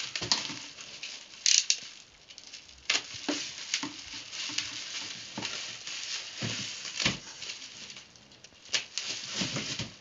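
Bubble wrap and plastic packaging crinkling and rustling as parts are handled in a cardboard box, with irregular crackles and a few louder ones, the loudest about one and a half seconds in.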